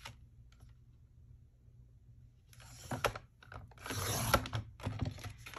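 Creative Memories sliding paper trimmer: the cutter head clicks on its rail and then slides down it, slicing through green cardstock with a scraping rasp about four seconds in.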